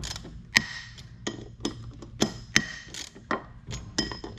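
Socket ratchet wrench clicking and clinking against steel as bolts are turned, a quarter to a half turn at a time, in the jacking holes of a mower deck pulley to press it off its hub. About a dozen sharp, irregular metallic clicks, some with a short ring.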